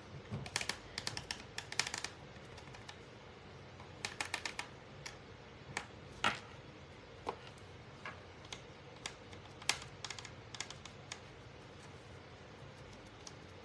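Light clicks and taps of thin wooden cutout letters being picked up, shuffled and set down on a wooden tabletop. They come in quick rattling clusters in the first two seconds and again about four seconds in, then as single taps spaced a second or so apart.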